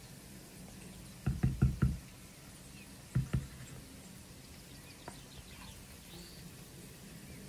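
Wooden spatula knocking against a small wooden serving box as caramelized onions are scraped off into it: a quick run of four or five dull knocks about a second in, two more a second later, then a faint tick.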